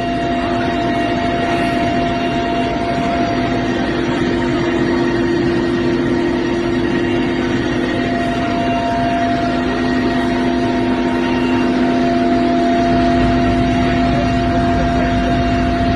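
Helicopter cabin noise: the steady drone of the engine and rotor heard from inside, with several unchanging hum tones over a low rumble that grows a little stronger near the end.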